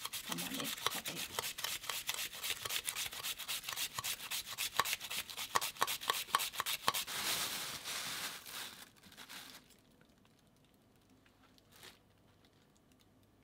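An onion being sliced on a handheld slicer, with rapid rasping strokes one after another. The slicing stops about nine seconds in.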